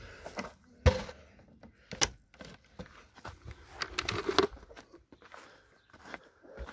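A wooden coop door being pushed shut, with a heavy knock about a second in and a sharper knock a second later, then footsteps scuffing over grit and paving.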